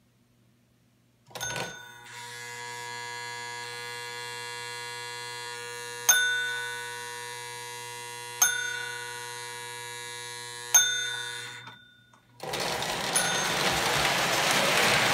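Bell of a restored Lionel postwar 2403B ringing: a steady ring with three louder dings about two seconds apart, each fading away. Then, about twelve seconds in, the toy train's running noise on the track.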